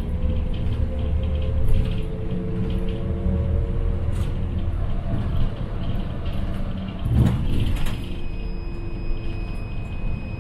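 City bus running, a steady low engine and road rumble. About seven seconds in comes a brief louder rush of noise, and then a thin steady high tone sets in.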